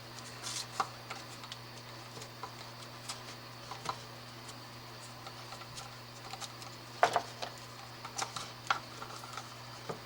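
Faint, scattered small clicks and scrapes of a tool and hands working on an electrical cord, cutting away its outer jacket to reach the wires inside; a slightly louder cluster of clicks comes about seven seconds in.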